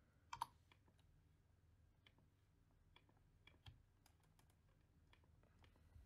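Faint, scattered clicks of a computer mouse and keyboard, with a louder pair of clicks about half a second in, over near silence.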